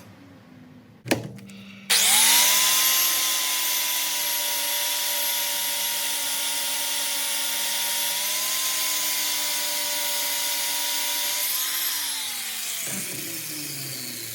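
Handheld power tool grinding down a warped exhaust flange to stop an exhaust leak. A click about a second in, then the tool spins up and runs steadily with a high whine for about ten seconds, then winds down with a falling pitch near the end.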